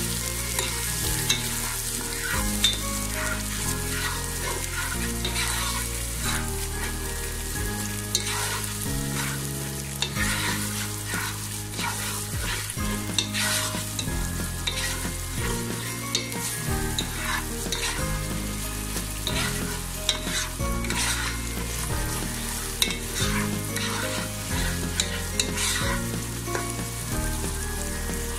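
Sliced onions and onion paste frying in mustard and soybean oil, sizzling steadily, while a spatula stirs and scrapes the pan in many short, irregular strokes.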